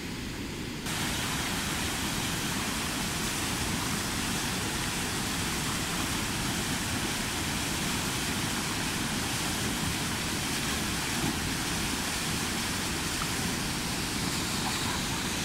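Waterfall pouring into a river pool: a steady rushing of falling and churning water that starts abruptly about a second in and holds level.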